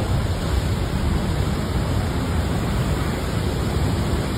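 Steady rushing of water, with a deep rumble underneath.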